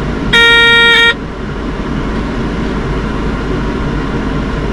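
Caterpillar D6N bulldozer's cab warning buzzer giving one steady electronic beep, about three quarters of a second long, as the ignition key is turned on for the system check before engine start. A steady low rumble runs underneath.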